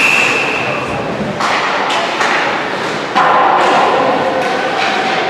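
Ice hockey game sounds in an arena: a short referee's whistle blast at the start, then several sharp knocks of sticks, puck and boards, and raised voices shouting from about three seconds in.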